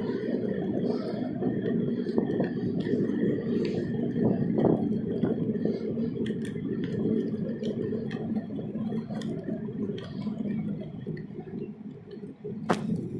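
Steady rumbling noise of a ride along an asphalt path: wheels rolling over the surface, mixed with wind on the microphone. There is a sharp click near the end.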